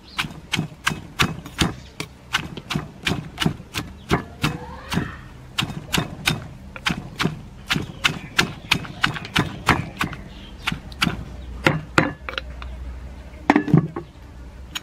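Wooden pestle pounding papaya salad in a stone mortar: steady knocks about three a second, pausing briefly near the end.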